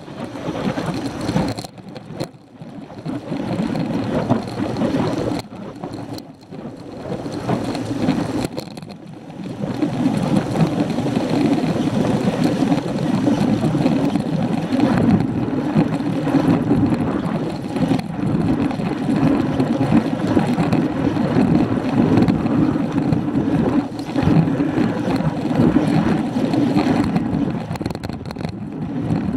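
Wind rushing over the microphone of a bike-mounted action camera, with road noise from riding on tarmac at about 15 mph. It dips several times in the first ten seconds, then holds steady.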